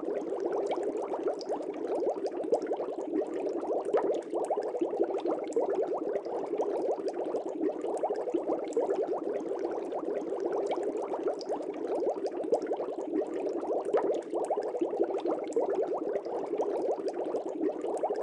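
Water bubbling steadily, a dense stream of small pops and gurgles with no pauses.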